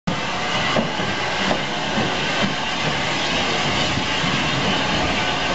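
Southern Railway U class 2-6-0 steam locomotive moving off in reverse, with a steady hiss of steam from around its cylinders and a few soft beats.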